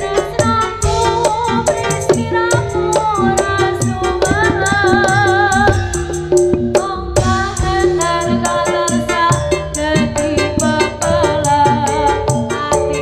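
Live jaranan music: a singer's wavering melody over gamelan-style pitched instruments and a dense, fast rattling percussion beat.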